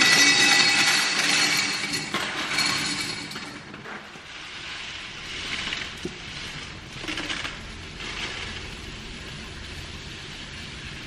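Dry pasta clattering as it is poured out of a plastic bag, loudest in the first two seconds. After that comes a softer, steady hiss of small dry grains running out of a bag into a glass jar.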